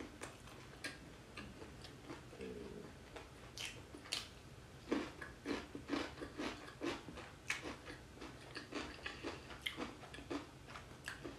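Chewing of fried chicken topped with corn and cheese, close to the microphone: soft, irregular mouth clicks and wet smacks, sparse at first and more frequent from about halfway.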